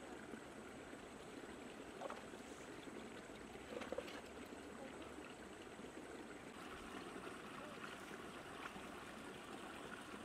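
Faint, steady flow of a shallow stream over rocks, with two brief louder sounds about two and four seconds in.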